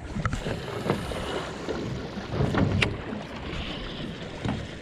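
Wind buffeting the microphone and water slapping against a small boat's hull, with a few light knocks.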